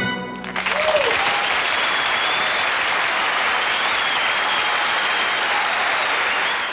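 The band's last chord cuts off right at the start, and from about half a second in a studio audience applauds steadily and densely.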